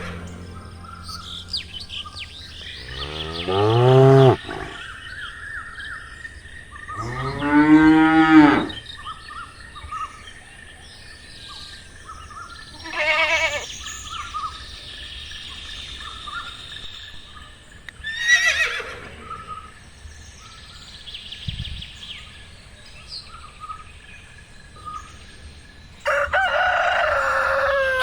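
Cattle mooing: two long moos rising in pitch, about four seconds apart, over birds chirping. Shorter animal calls follow, and a louder burst of sound starts near the end.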